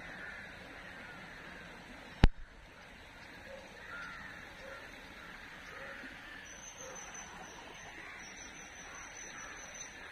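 Riverside outdoor ambience: birds chirping and calling over a steady background hiss, with a thin high steady tone coming in about six seconds in. One sharp click about two seconds in.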